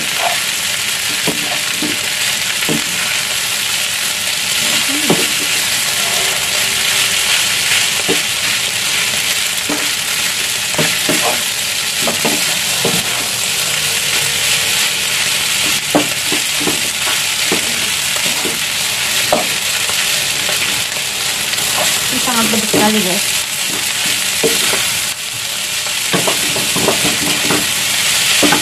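Fried rice with shredded chicken sizzling in a frying pan over a high flame, with a wooden spatula scraping and knocking against the pan at irregular intervals as it is stirred and tossed.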